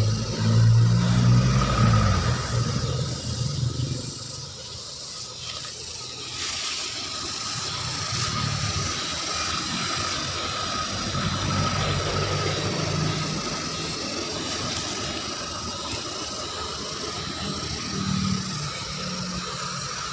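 Motor vehicle engine running nearby, loudest in the first two seconds, then a lower hum that comes and goes. A faint steady high tone runs underneath.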